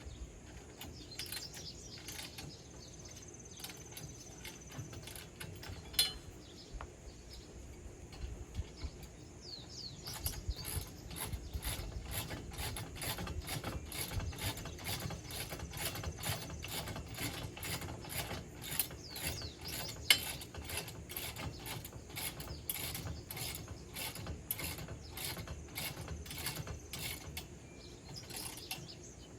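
Hand ratchet wrench clicking in long runs of rapid strokes while tightening nuts and bolts, the clicking growing denser about a third of the way in. Two sharper metal clinks stand out, one early and one past the middle.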